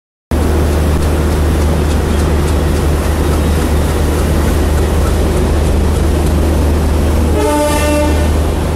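Jan Shatabdi passenger train rolling past a platform as it arrives, with a steady low rumble. Near the end a horn sounds once, a short blast of under a second.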